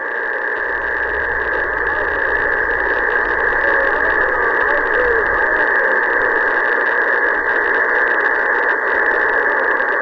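Steady hiss and static from a 27 MHz AM citizens' band radio's speaker, the noise cut off above about 2 kHz, with faint wavering tones in it. A weak distant station carried by sporadic-E is coming in under the noise.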